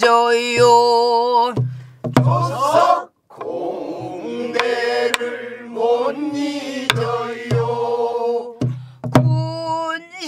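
Pansori singing in long, wavering held notes, accompanied by buk barrel drums: sharp stick cracks on the wooden rim and deep thumps on the drumhead, a few strokes spread through the phrase.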